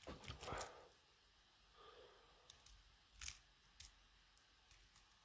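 Faint metallic clicks and taps of a lock pick working the pin stacks of a pin-tumbler knob cylinder, its core held in a false set by a security pin. The clicks come in a quick cluster at first, then as a few scattered single clicks.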